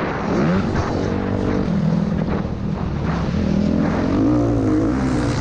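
Motocross bike engine running under the rider, its pitch dropping and climbing again as the throttle is rolled off and opened through the track's turns.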